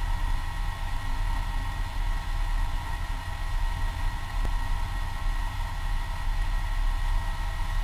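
Holden VK Commodore engine idling steadily, heard from inside the cabin while the car waits stationary at the start line. A steady high whine sits over the low rumble.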